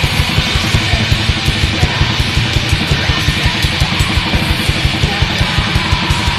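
Black metal: a dense wall of distorted guitar over fast, evenly pulsing drums.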